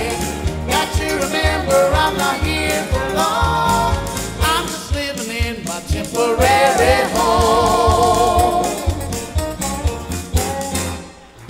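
Gospel trio singing live with a band and drums, a male lead with two female voices in harmony, finishing the song on a long held chord that drops away just before the end.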